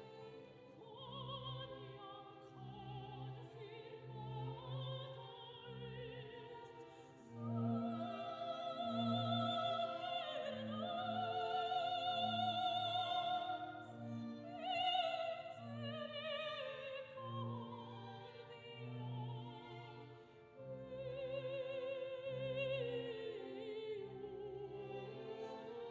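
Music: operatic singing with strong vibrato over an orchestra, with a low note pulsing under it; it swells about seven seconds in.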